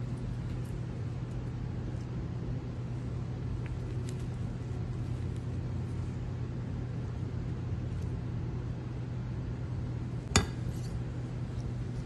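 Steady low background hum with faint scattered ticks, and one sharp clink a little after ten seconds in.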